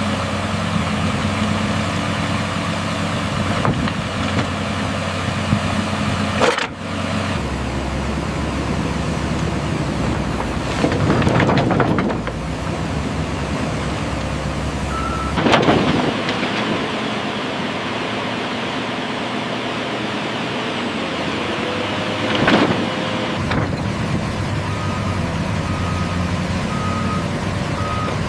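Excavator working: its diesel engine runs steadily and swells louder under load three times. Near the end a backup alarm sounds a steady series of short beeps.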